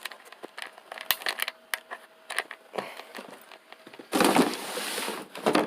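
Handling noise: scattered small clicks and crinkling, then about a second and a half of louder rustling starting about four seconds in, which cuts off suddenly.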